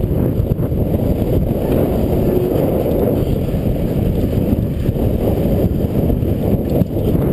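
Wind buffeting the bike-mounted action camera's microphone at riding speed, over the rumble of mountain bike tyres rolling across a wooden plank boardwalk. A loud, steady rough rush that flutters rapidly throughout.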